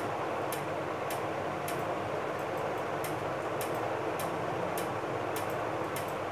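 Steady background hiss with faint, evenly spaced ticking, about two ticks a second.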